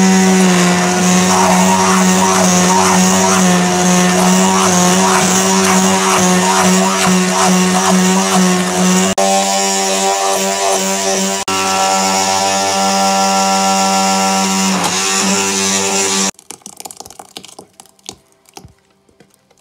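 Electric hand mixer running steadily as its beaters whip cream until it thickens, an even motor hum. It cuts off suddenly about three-quarters of the way through, leaving a few faint clinks.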